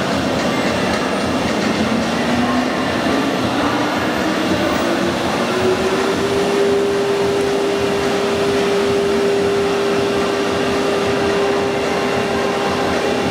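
Longdiao LD-M1313A CNC router spindle cutting through a sheet: a loud, steady whirring cut noise. A single tone rises in pitch over the first half and then holds steady.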